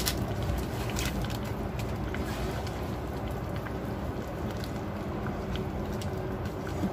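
A pot of soup boiling on the stove: a steady rumbling hiss with a few faint clicks.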